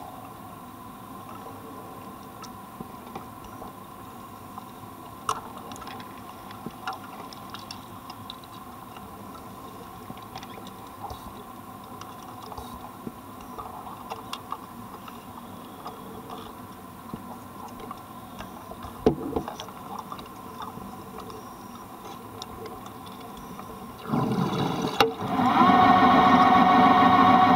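Underwater ambience on a wreck dive: a steady low hiss with scattered faint clicks and taps. About three seconds before the end, a much louder steady drone with a hum cuts in and holds.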